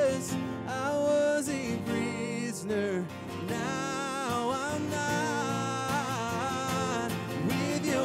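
Live worship song: a man singing lead over strummed acoustic guitars.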